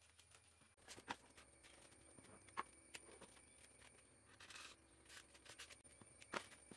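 Near silence with faint handling noises: a few light taps and clicks, and a brief soft scrape about four and a half seconds in as a marker pen traces a line on a polystyrene foam block.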